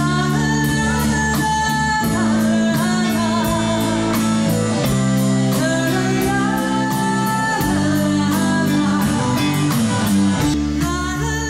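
Live rock band with a female lead vocal, electric bass, electric guitar and drums, recorded through a Canon DM-100 stereo microphone with automatic gain control on, which pushes audience noise up over the vocal. Near the end a low open-string bass note distorts and spills into the vocal.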